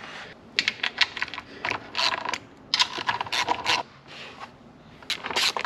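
Bursts of rapid clicking and scraping clatter from hands handling a small mower engine and its parts, in three clusters with a lull before a last burst near the end.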